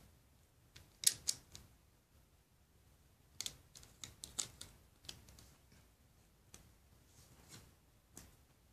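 LEGO bricks clicking as a plastic model and its pieces are handled: a couple of sharp clicks about a second in, a quick cluster of clicks around the middle, and a few lighter ones near the end.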